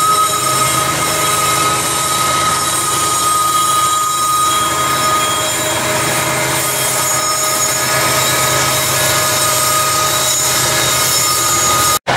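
Covered hopper cars of a freight train rolling past at close range, with a steady high-pitched wheel squeal that is strongest for the first five seconds or so, then fainter. The sound cuts off abruptly near the end.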